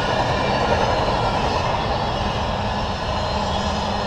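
Double-stack container freight cars rolling past, their steel wheels running steadily on the rails.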